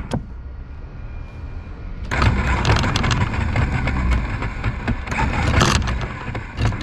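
Electric anchor windlass running, its gypsy pulling 5/16 chain with the links clicking and clattering. The motor starts about two seconds in and stops near the end. Its shaft is bent and badly loose.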